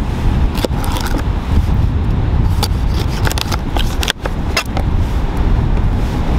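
A knife cutting and prying into the tough, leathery skin of a red bait sea squirt on a hard plastic cooler lid: a string of sharp scrapes and clicks, thickest in the middle. A constant low rumble runs underneath.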